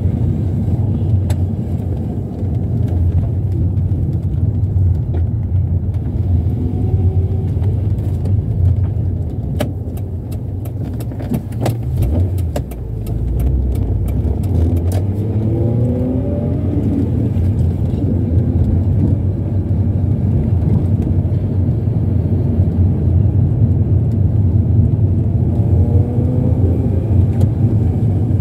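Mazda MX-6 driving gently, heard from inside the cabin: a steady low engine and road rumble, with a few faint rising and falling tones and a run of small clicks and rattles about ten to thirteen seconds in.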